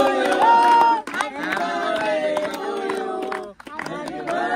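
A group of people cheering and singing together, with scattered hand claps; the voices break off briefly near the end.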